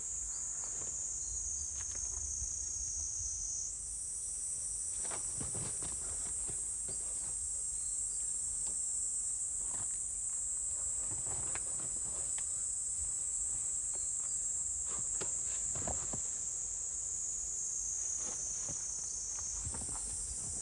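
Steady, high-pitched chorus of insects, with scattered faint scuffs and thumps underneath.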